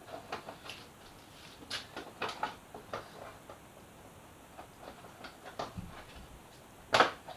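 Scattered light clicks and knocks of a motorcycle's plastic fairing panel and its clips being worked loose and pulled off, with one sharper knock about seven seconds in.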